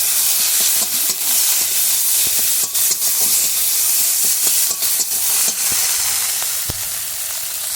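Onion-and-ginger-paste masala sizzling hard in hot oil in a kadai, with occasional clicks and scrapes of stirring. The spices are starting to burn.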